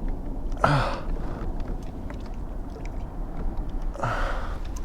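A man's breathing as he strains: a short voiced gasp about half a second in and a long breathy exhale near the end. Faint clicks and rustles run over a steady low rumble.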